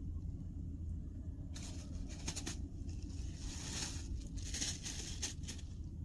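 Irregular crackling, rustling noise over a steady low rumble, starting about a second and a half in and coming in uneven clusters.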